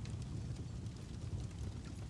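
Fire sound effect: a steady low rumble with scattered faint crackles.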